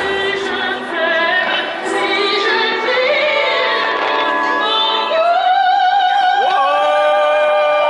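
Operatic music: a woman sings long, held notes with vibrato over the accompaniment.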